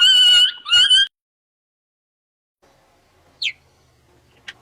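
Cheetah chirping: two high, bird-like chirps in the first second. After a pause, short high squeaks sweep quickly downward near the end.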